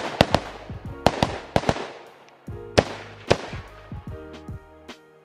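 Semi-automatic rifle fired rapidly while the shooter moves, a string of sharp shots mostly in quick pairs, two on each target.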